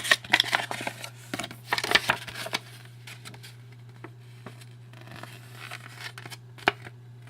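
Trading cards being handled and slid against each other, short papery rustles and light taps, busiest in the first couple of seconds with one sharper tap near the end, over a steady low hum.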